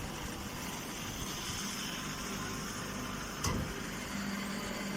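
Machinery running steadily, with a single sharp knock about three and a half seconds in and a low steady hum coming in near the end.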